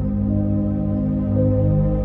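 Slow ambient music of long held tones over a steady low pulse.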